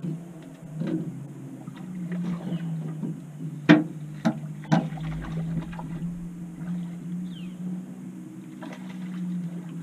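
Steady low hum of a boat motor, with a few sharp knocks on the boat in the middle, while a fish is played on the rod.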